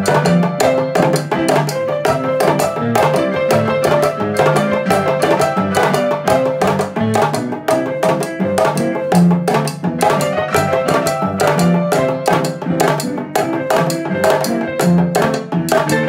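A rope-tuned, skin-headed hand drum beaten with two wooden sticks and a large metal bell struck with a stick, playing an interlocking candomblé rhythm (the ilu). The bell rings a repeated pitched stroke over the drum's low tones.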